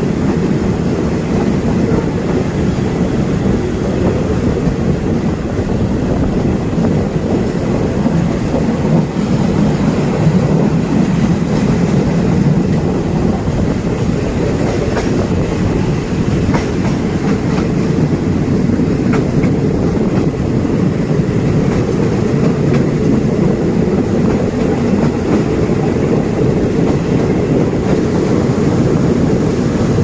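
Passenger train carriage of the State Railway of Thailand running along the track, heard from its open side: a steady rumble of wheels on rail with clacking over rail joints.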